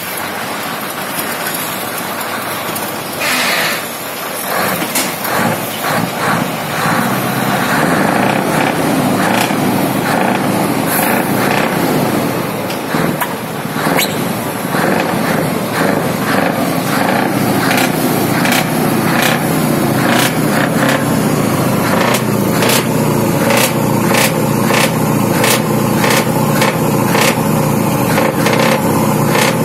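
Scania V8 diesel truck engine running through triple straight-pipe side exhausts, with a steady throb and many short, sharp bursts on top that come thicker near the end. Wind buffets the microphone in the first few seconds.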